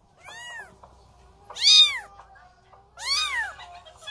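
One-month-old Korean shorthair tabby kitten meowing: three high mews about a second and a half apart, each rising then falling in pitch. The first mew is the softest and the second the loudest.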